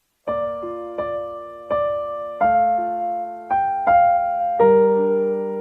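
Background music on a piano-like keyboard: a slow, gentle melody of struck notes over chords, each note starting sharply and ringing as it fades, beginning just after the start.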